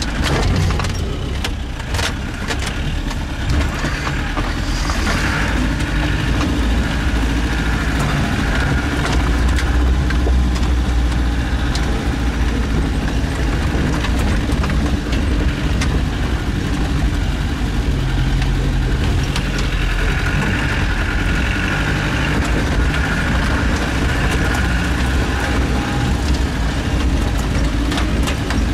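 Off-road 4x4's engine running steadily at low speed, heard from inside the cab, with occasional knocks and rattles as it rolls over a rocky dirt track.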